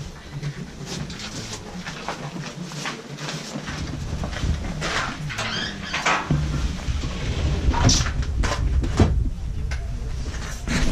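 Rustling of winter clothing and knocks of ice-fishing gear being handled, with a low rumble setting in about a third of the way through.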